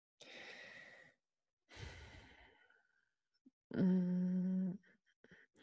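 A woman sighs twice, two soft breaths out, then gives a level hummed "mmm" for about a second near the end: a hesitation sound while she searches for words.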